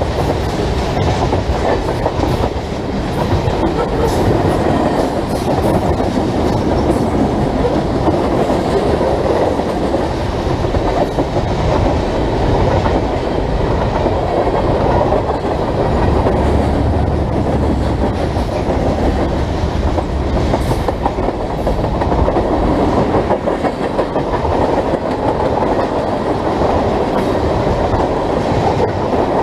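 Freight train of tank cars and covered hoppers rolling past at close range: a loud, steady rumble of steel wheels on rail, with scattered clicks and clatter from the wheels and cars.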